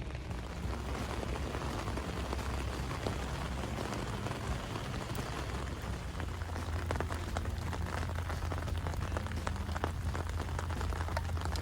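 Steady rain pattering on a tent's fabric, heard from inside, with scattered sharper drop ticks. A low hum comes in about halfway through.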